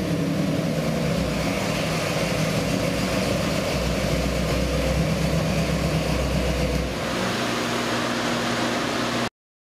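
Ford 408 Windsor stroker V8 with 48mm Inglese sidedraft carburetors, running on an engine dyno and settling down to a steady idle after a full-throttle pull. The sound cuts off suddenly near the end.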